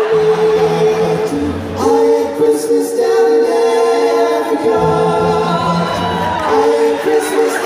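Male a cappella group singing in close harmony into microphones, several voices holding chords over a low bass line.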